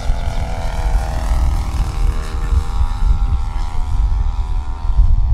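Radio-controlled scale Van's RV-4 model airplane flying past, its engine and propeller giving a steady droning note that drifts slightly in pitch, over a low rumble.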